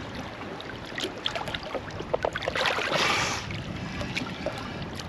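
Water splashing and lapping around a snorkeler as he surfaces, with small splashes throughout and a louder rushing hiss about three seconds in.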